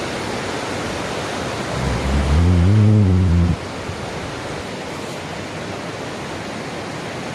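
Steady rush of flowing water from a stream or river. About two seconds in, a low, wavering hum-like tone rises over it for about a second and a half and is the loudest sound.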